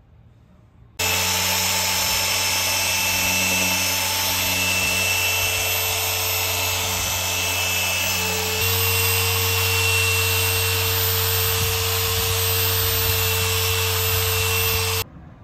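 Rupes Bigfoot compact polisher with a yellow foam pad running steadily while polishing a plastic tail-light lens: a steady motor hum with a hiss. It starts abruptly about a second in, steps up slightly in pitch about halfway through, and stops abruptly near the end.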